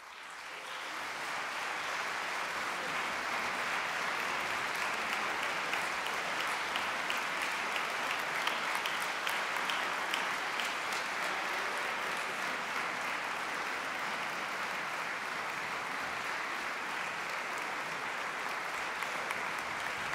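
Concert audience applauding, swelling over the first couple of seconds and then holding steady.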